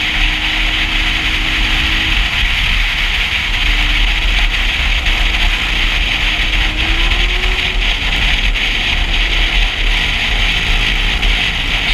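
Motorcycle riding at a steady cruise, heard from a helmet-mounted camera: loud, steady wind rush and rumble over the microphone, with the engine's note faintly underneath, its pitch rising a little about seven seconds in.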